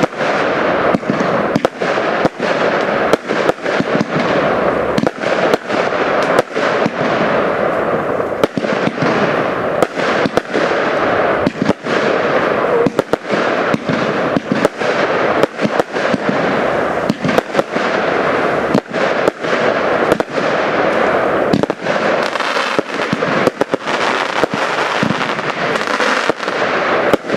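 Pyrocentury "Best of the Best 4" consumer firework battery firing continuously: sharp shot reports and bursts several times a second over a dense, unbroken crackle.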